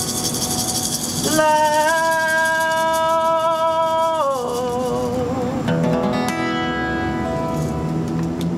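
Acoustic guitars playing a slow ballad while a man holds one long sung note with vibrato, sliding down at its end, then the guitars carry on alone. A shaker rattles in the first second.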